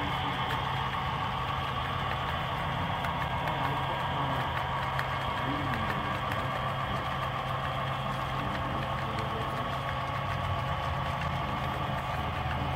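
Model freight train running steadily along the layout's track: an even, continuous mechanical hum of the locomotive's running gear and the cars' wheels rolling on the rails.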